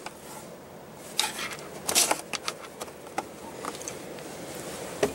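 Scattered plastic clicks and knocks from a car's rear centre armrest storage lid being opened and handled, the loudest about two seconds in.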